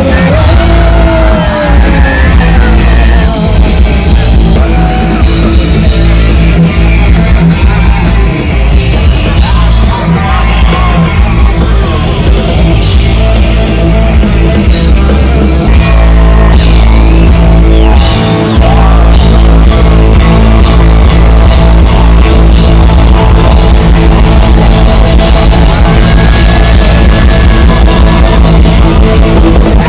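A live rock band playing loud over a concert sound system: drum kit, electric guitar and a singer's voice, heard from within the crowd.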